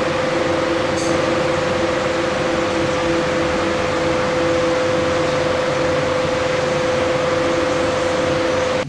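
A machine running steadily: an even whir with a constant hum and a faint pulsing under it.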